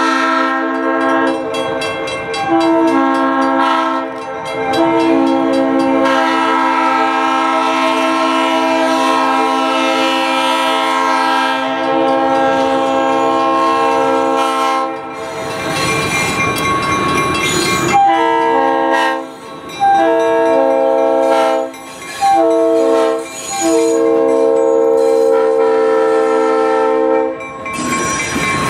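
Leslie RS3L air horn on an EMD SW900 switcher blowing for a grade crossing: a very long chord, then the long, long, short, long crossing signal. Between the blasts the diesel locomotive and its wheels pass close by.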